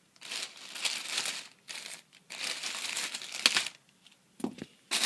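Packaging being crinkled and worked at by hand in irregular bursts of rustling, with a couple of sharp clicks in the last second and a half.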